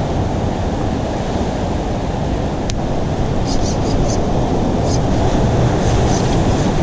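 Ocean surf surging and washing through a rock gutter: a steady, rumbling rush of white water. One sharp click comes nearly three seconds in, followed by a few faint ticks.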